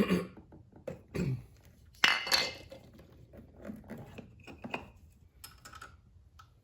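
Sharp metal knocks and clatter, loudest about two seconds in, as the valve cover is whacked loose and lifted off a small generator engine, followed by lighter clinks of metal parts.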